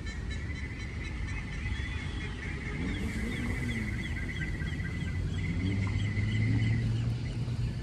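Birds calling: a high, rapidly pulsing trill and a run of short repeated chirps, over a steady low rumble.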